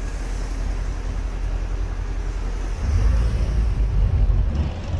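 Tour boat under way: its engine running steadily with water and wind noise, and a low rumble that swells about three seconds in.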